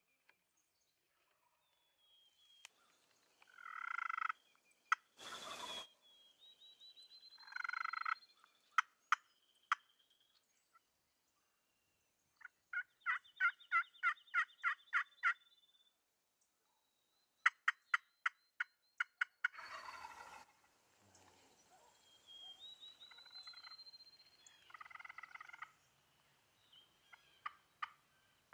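Wild turkey gobbling several times, each gobble a rattling call about a second long. Between the gobbles come a quick run of about ten short calls, runs of sharp clicks and a single thump.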